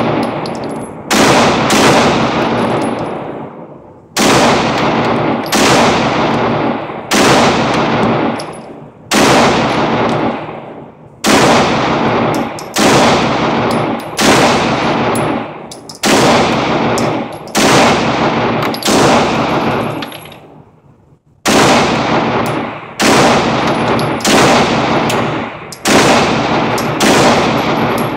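9mm Glock pistol fired slowly, about one shot a second with a short pause about two-thirds of the way through. Each shot rings on in the echo of an indoor range.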